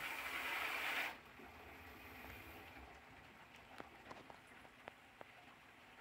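Water splashing and churning in a sump pit, stopping abruptly about a second in, followed by scattered drips.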